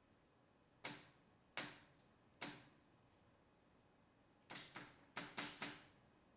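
Butcher knife chopping an onion on a cutting board: three separate knocks of the blade against the board, then a quick run of about six near the end.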